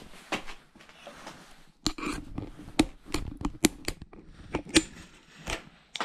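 Scissors working: an irregular run of sharp snips and clicks over the last four seconds, with some light handling knocks.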